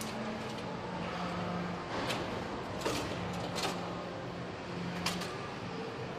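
Workshop noise: four sharp knocks spread through a steady background hum, with a low drone that comes and goes.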